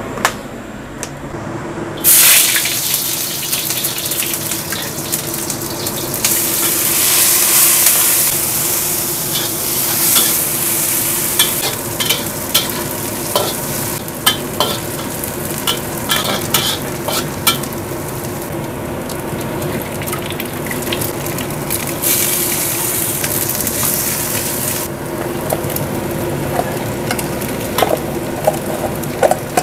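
Food frying in a smoking-hot wok: a loud sizzle starts suddenly about two seconds in as the ingredients hit the metal, then keeps up, swelling louder twice. A metal spatula scrapes and taps against the wok throughout as the fried rice is stirred.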